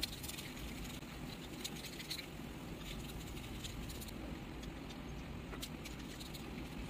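Paintbrush stroking paint onto a dried corn husk: faint, irregular scratchy rustling and crackling of the dry husk over steady low background noise.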